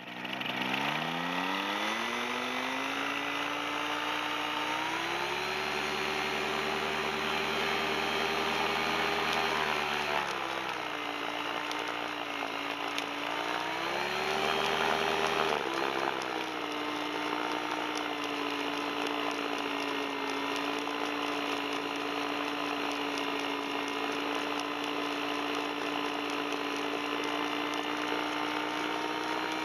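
Tandem paramotor trike's engine at high throttle for the take-off run: it revs up in the first few seconds, dips and climbs again about midway, then settles into a steady drone at a lower pitch.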